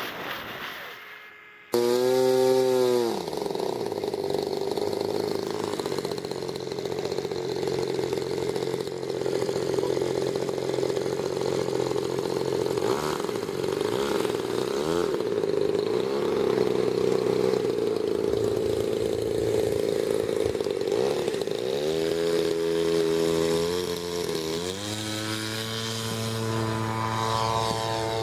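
Engine of a large yellow Cub-style RC model airplane. After a brief rev it drops back and runs steadily at low throttle with the propeller turning, then it is throttled up in steps near the end to a higher steady note for the takeoff. A second and a half of wind rush comes first.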